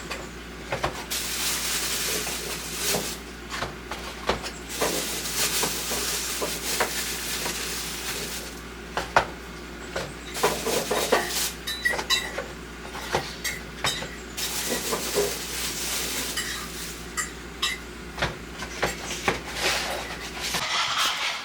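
Dishes and cutlery clinking and knocking, many short strikes scattered throughout, over a steady hiss, with a low hum that cuts off near the end.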